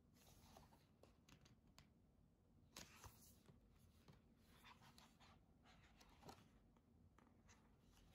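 Near silence: faint room tone with a few soft, scattered clicks and rustles.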